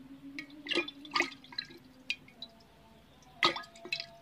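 Water dripping and splashing in a glass jar as a small snakehead is handled in a wet hand above it: a handful of sharp drips and small splashes, the loudest about three and a half seconds in.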